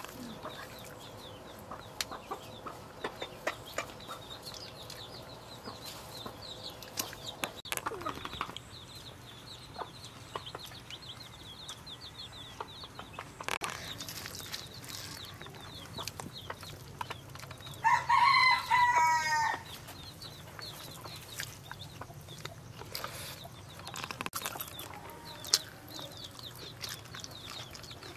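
A rooster crows once, a loud call of about one and a half seconds about two-thirds of the way through, over faint scattered clicks from hands eating rice off banana leaves.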